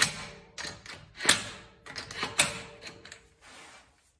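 Cordless impact wrench on a low power setting, hammering lug nuts tight on a car wheel in short trigger bursts. There are about six bursts, the loudest at the start and about one and two and a half seconds in, with the last ones fading out a little before the end.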